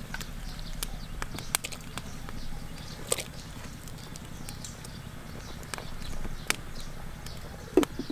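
Small wood fire crackling under a clay cooking pot, with scattered sharp pops. Near the end a clay lid is set down on the clay pot with a short clunk.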